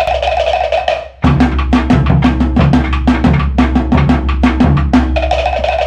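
Polynesian drum group playing a fast, driving rhythm: rapid sharp strikes over a deep drum. It breaks off for a moment about a second in, then carries on.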